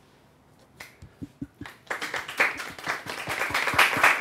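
Studio audience applauding: a few scattered claps, then the whole group joins in with full applause about two seconds in.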